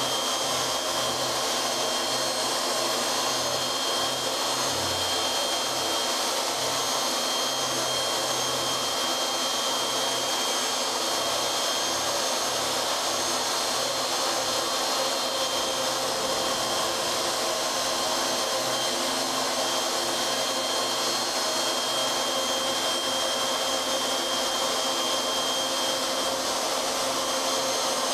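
Small gantry CNC router running a job: its spindle motor whirs steadily with a thin high whine as the cutter mills the workpiece.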